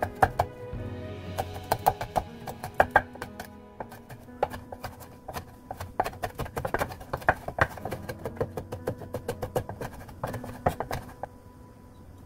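Chef's knife mincing red chili on a wooden cutting board: quick, irregular knocks of the blade on the board, several a second, that thin out near the end, over background music.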